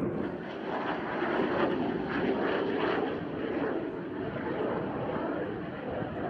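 Jet noise from PZL TS-11 Iskra jet trainers flying past, a steady roar that swells to its loudest about two seconds in and then eases a little.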